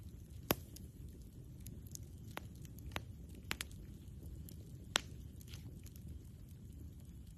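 Campfire crackling: a handful of sharp pops and snaps, the loudest about half a second in and again at about five seconds, over a low steady rumble.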